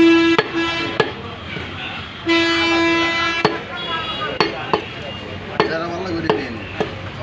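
Sharp knocks of a butcher's knife striking a wooden log chopping block as beef is cut, at irregular intervals. Over them a horn sounds in steady blasts: one ends just after the start with a short toot after it, and another lasts about a second from just over two seconds in. The horn is the loudest sound.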